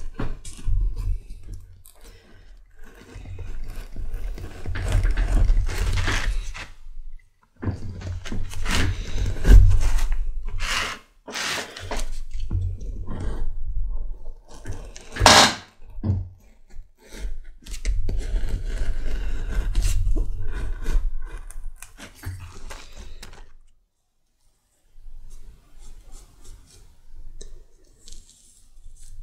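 Round knife slicing through leather, trimming the excess lining from around a sheath piece: repeated scraping cuts with dull knocks against the bench. The cutting stops about 23 seconds in, leaving only faint handling sounds.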